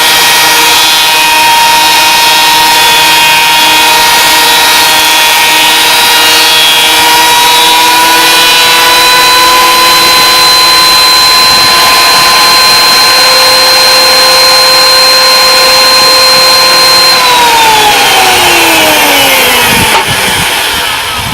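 Electric thickness planer running loud with a steady high whine while planing a red cedar board. The pitch rises slightly a few seconds in. Near the end it is switched off, and the whine falls in pitch as the cutterhead spins down.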